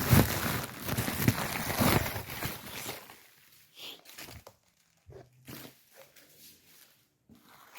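Plastic wrapping rustling and crinkling as a championship belt is unwrapped and lifted out, for about three seconds. Then a few faint knocks and taps of handling.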